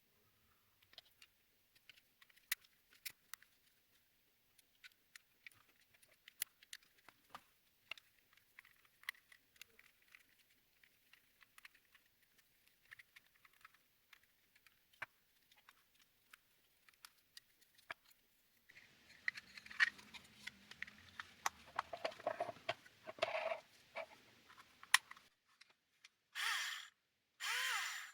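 Scattered light clicks and taps for most of the time. Then come a few seconds of denser clatter and rustling, and near the end two short, louder swishing bursts.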